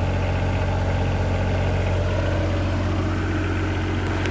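The diesel engine of a Vote 1.8-ton mini excavator idling steadily as it warms up.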